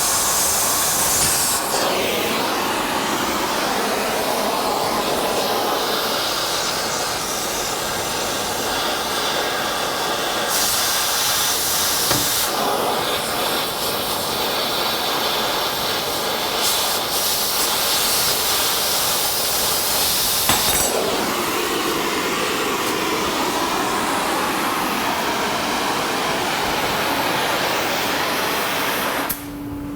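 Oxy-fuel cutting torch hissing steadily as it cuts through leaf-spring U-bolts, then shut off suddenly near the end.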